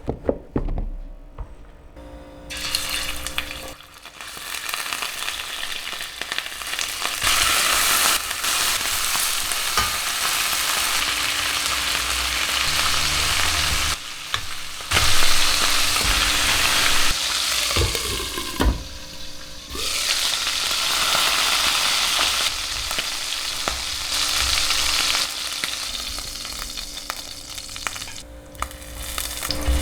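Food frying and sizzling in a hot pan while it is stirred, starting a couple of seconds in and running with a few short lulls.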